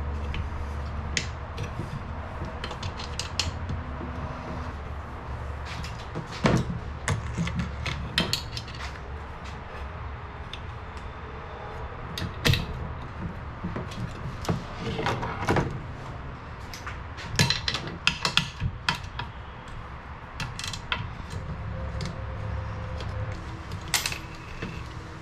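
Scattered clicks and knocks of tools and metal parts being handled, some in quick clusters, over a steady low hum.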